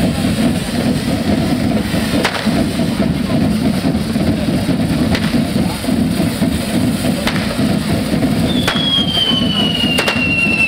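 Pyrotechnics of a correfoc devils' troupe: sharp firecracker bangs every couple of seconds over a dense steady din. Near the end a whistling firework starts up and slides slowly down in pitch.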